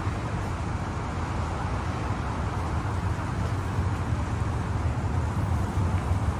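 Sumitomo Heavy Industries rubber-belt moving walkway running: a steady low hum with an even hiss over it, growing slightly louder near the end.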